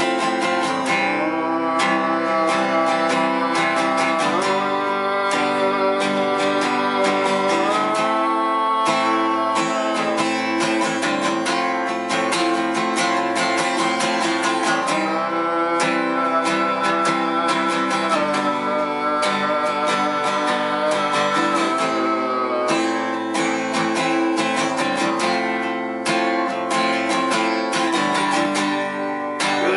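Acoustic guitar strummed steadily, with the chords changing every two to four seconds.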